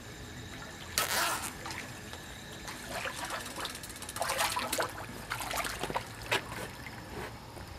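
Pond water trickling and splashing lightly, with a few brief soft knocks and rustles.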